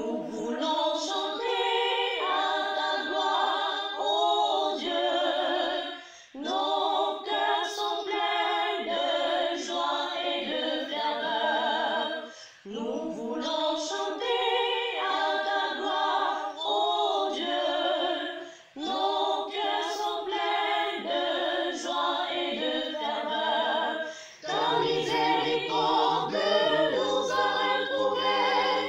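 Virtual choir of men and women, each recorded separately and mixed together, singing unaccompanied in phrases of about six seconds with short breaks for breath. A lower part comes in for the last few seconds.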